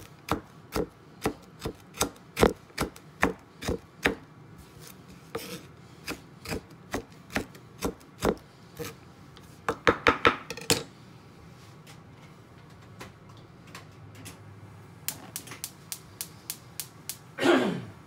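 Kitchen knife chopping frozen roast pork on a wooden cutting board: steady sharp chops about two to three a second, then lighter, sparser knocks with a quick flurry midway. Near the end comes a fast run of small clicks and a short swelling noise that falls in pitch.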